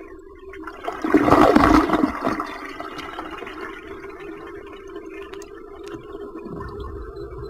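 Toilet flushing: a loud rush of water begins about a second in and dies down to a lower trickle after a couple of seconds.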